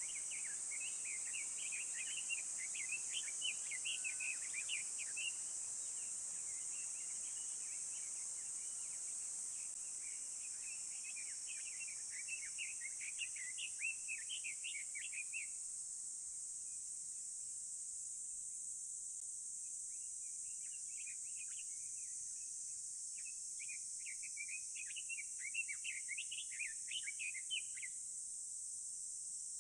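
A songbird singing three bouts of quick chirping notes, each a few seconds long, over a steady high-pitched insect drone.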